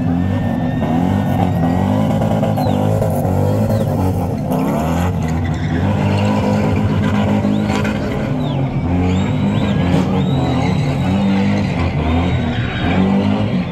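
Spinning car's engine held at high revs, the pitch stepping up and down as the driver works the throttle while the car turns circles, with tyres squealing at times.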